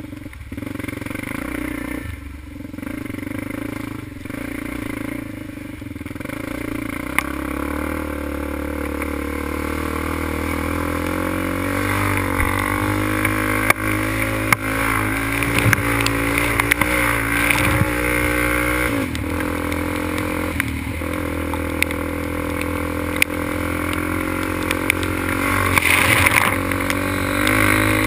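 Sport quad's engine running under load on a trail ride, revving up and falling back again and again as the throttle and gears change. There is a constant rush of riding noise and occasional short knocks from bumps, heard from a helmet-mounted camera.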